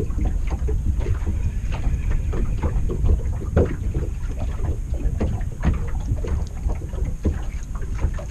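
Wind buffeting the microphone in a steady low rumble, with irregular light slaps and knocks of small waves against a boat's hull.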